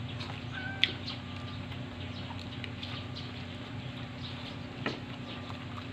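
Quiet sounds of people eating crispy fried chicken by hand, over a steady low hum. A sharp click comes just under a second in, alongside a short faint chirp.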